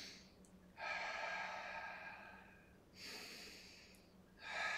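A man breathing audibly while holding a Pilates plank: three long breaths, each starting suddenly and fading off.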